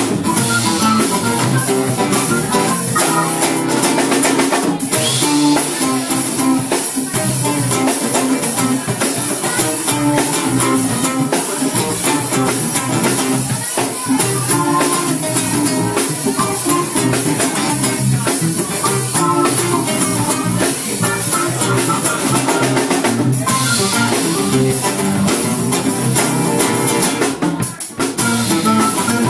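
Live band playing, with drum kit, electric guitar and stage keyboard.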